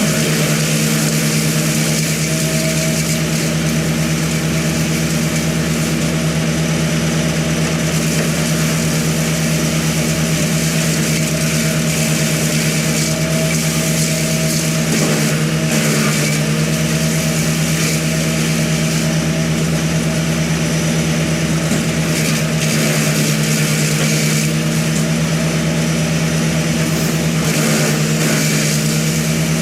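An engine running steadily at constant speed, its pitch unchanging.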